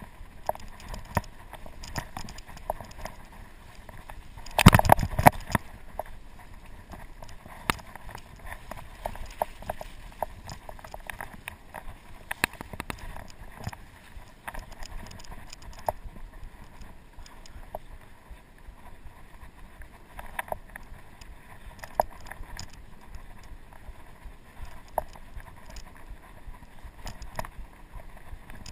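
Norco Sasquatch fat bike riding over a leaf-covered dirt trail, rattling and clicking over bumps throughout, with a loud cluster of knocks about five seconds in.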